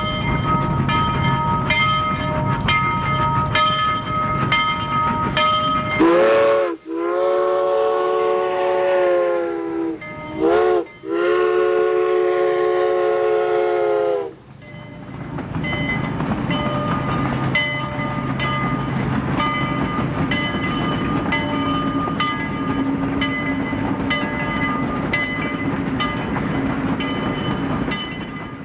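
Train sounds: an even, rhythmic clatter over steady tones, broken about six seconds in by a train horn that sounds twice, each blast rising as it starts and lasting about four seconds. The clatter then resumes.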